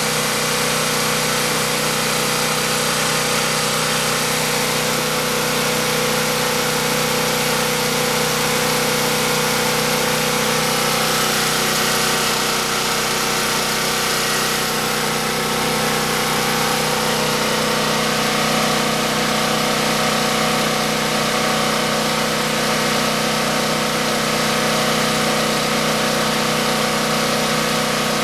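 Champion 4000-watt portable generator's single-cylinder gasoline engine running at a steady speed, with a constant hum that does not change, while it powers a 1000-watt electric heater.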